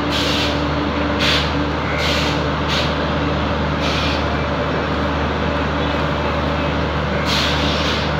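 Indian Railways electric locomotive giving a steady hum from its running equipment, with about six short hisses of air scattered through it.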